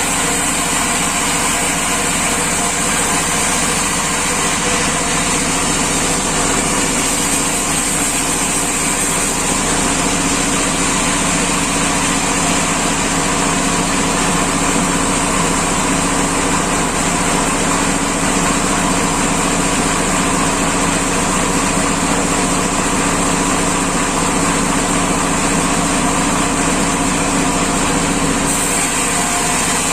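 Sawmill machinery running steadily: a continuous engine-like drone with a steady high whine on top.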